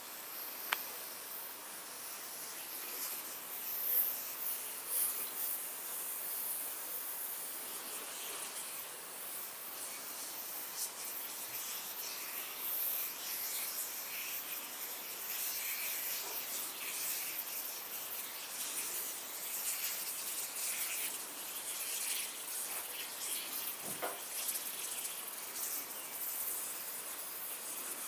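A fine, crackly high hiss from cola spraying out of a pinhole leak in a Coca-Cola can, a hair-fine jet under pressure like an airbrush, with no visible hole. A single sharp click sounds about a second in.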